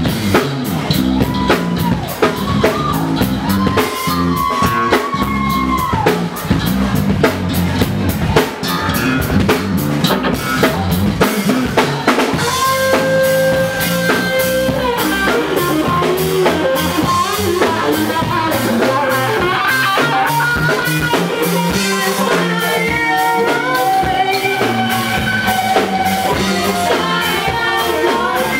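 Live rock band playing: a full drum kit keeps a steady driving beat under bass guitar, electric guitar and keyboards. Long held melody notes come in about twelve seconds in.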